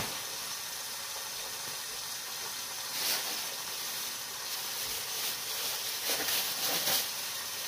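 Steady hiss with brief crinkling of a plastic bag being handled, once about three seconds in and again a few times near the end.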